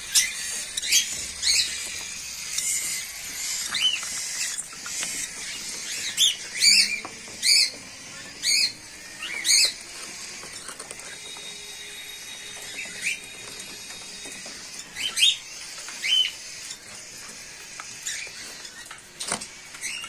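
Cockatiels and lovebirds in an aviary chirping, with short high calls scattered throughout and several sharp ones in quick succession near the middle. A single sharp knock comes near the end.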